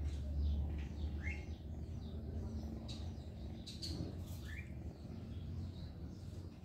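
Two short rising bird chirps, one about a second in and another just past four seconds, over a steady low rumble and a few faint clicks.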